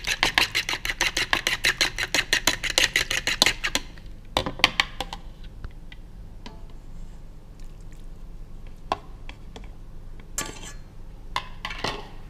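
A fork beating eggs in a plastic bowl: quick, even clicking strokes about seven a second that stop about three and a half seconds in. Then a few scattered knocks and short scrapes as the bowl is handled.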